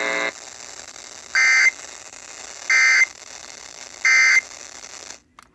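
NOAA Weather Radio end-of-message data bursts: three short, identical, screechy two-tone digital bursts about 1.4 s apart over radio hiss, marking the end of the severe thunderstorm warning broadcast. A buzzy steady tone cuts off just after the start, and the radio audio drops out about five seconds in.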